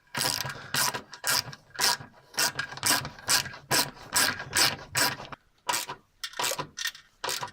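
Hand ratchet wrench clicking in short strokes, about two a second, tightening a new bolt into a car's undertray.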